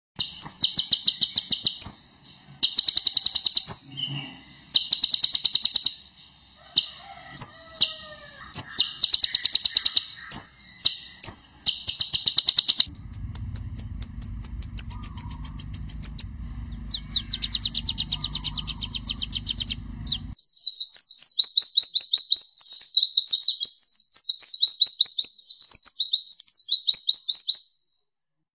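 Kolibri ninja (purple-throated sunbird) singing: rapid, high-pitched trilled phrases of about a second each with short pauses, then a long continuous chattering warble that cuts off suddenly near the end. A low hum runs under the song for several seconds in the middle.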